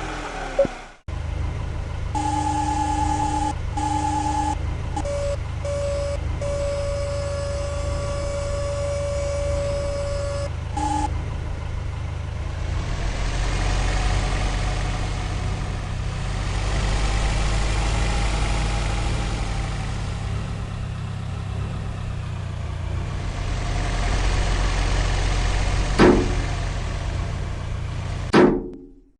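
Heavy construction vehicle's engine running steadily, with a series of electronic warning beeps and a longer held warning tone over the first ten seconds or so. Two sharp knocks come near the end.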